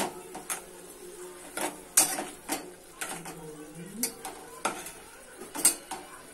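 Metal spatula stirring tomatoes in a metal pot, scraping and clinking against the pot's sides and base in irregular strokes, about one or two a second. A faint sizzle of the tomatoes cooking in a little oil and water runs underneath.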